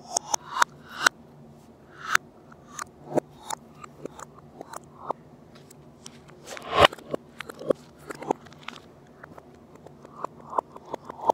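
A table knife spreading butter on a bread roll, played backwards: a run of short scrapes and clicks that each swell up and cut off abruptly, the loudest about two-thirds of the way through.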